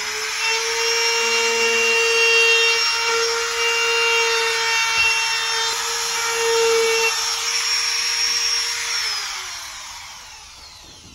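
Compact trim router running steadily while cutting the edge of a curved wooden table-leg piece, a high motor whine over the rasp of the bit in the wood. It reaches full speed about half a second in, then winds down with a falling pitch after it is switched off near the end.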